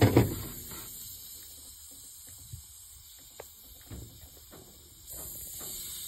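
Handling noise against the coil: one loud bump right at the start, then a few light clicks and taps over a steady hiss.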